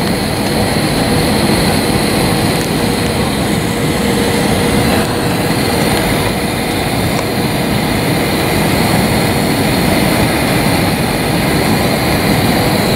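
Steady cabin noise of an Airbus A319 descending on approach: an even rush of jet engines and airflow heard from a window seat, with a few faint steady tones.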